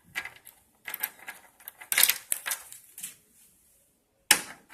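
Irregular small clicks and clatter of hand work on the ticker display's controller card as the wire is freed from its DC socket terminal with a small tool, with a sharper click near the end.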